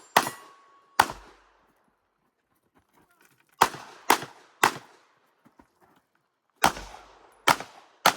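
Pistol shots fired in strings with pauses between them. There are two shots about a second apart, then three quick shots about three and a half seconds in, then three more near the end. Each shot has a short echo.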